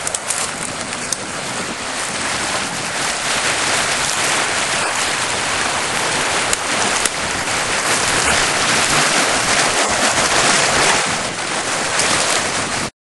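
Water gushing steadily from a discharge pipe into a storm-drain ditch, a continuous rushing that stops abruptly near the end.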